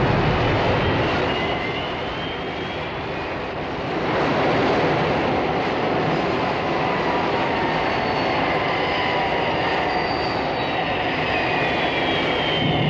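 Thunderbird 1's rocket engine sound effect during a vertical landing: a loud steady jet roar with high whining tones that slowly fall in pitch, swelling about four seconds in.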